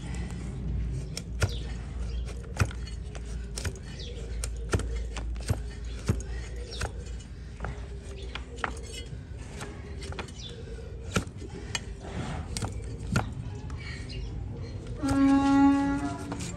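A heavy cleaver-like blade cutting through donkey hoof horn on a wooden block: irregular sharp clicks and knocks as the blade bites the horn and strikes the wood. Near the end a brief steady pitched tone sounds for about a second.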